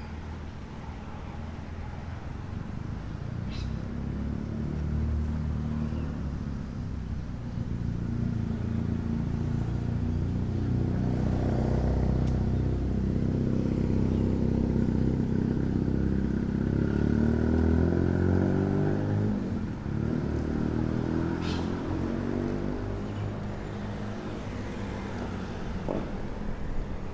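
Road traffic passing on a city street: car engines and tyres swell to a peak through the middle and ease off, with an engine note rising as a vehicle accelerates away about two-thirds of the way through.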